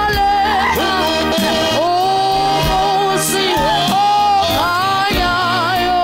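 A gospel hymn: a singer holding a gliding melody over instrumental backing with a steady beat.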